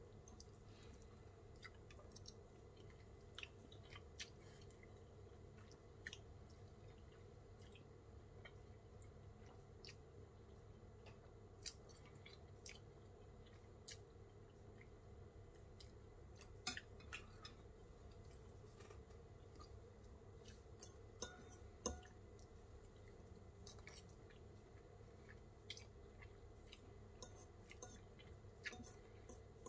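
Quiet eating: faint chewing with scattered light clicks of a metal fork against a ceramic bowl, a few of them louder in the second half.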